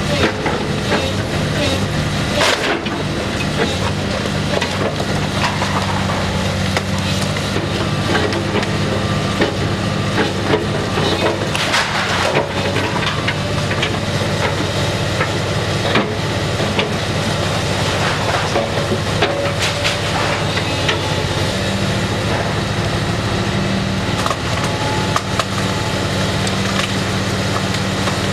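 Building demolition: a heavy machine's engine runs steadily under repeated crunching, cracking and crashing as brick and concrete structure is broken down. The biggest crashes come about two and a half seconds in and again around twelve seconds.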